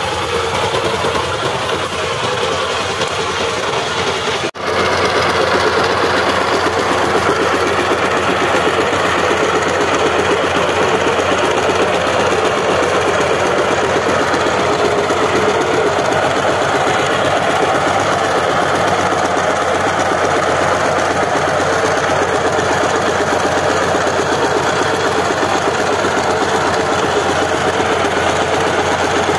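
Power tiller's single-cylinder diesel engine running with a steady, fast knocking beat. The sound breaks off for an instant about four and a half seconds in and picks up again.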